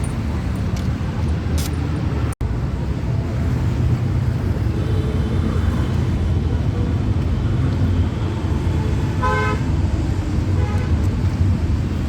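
Steady road traffic rumble, with a short vehicle horn toot about nine seconds in and a fainter one just after.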